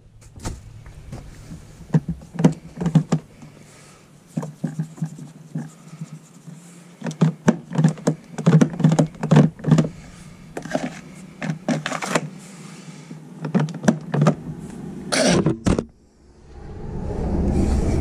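Hard plastic parts of a Thetford toilet cassette being handled and turned: a run of irregular clicks and knocks over a steady low hum, with one louder knock near the end followed by a rising rush of noise.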